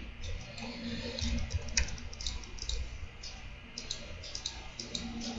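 Irregular clicks of a laptop keyboard and mouse as commands are entered, a few a second.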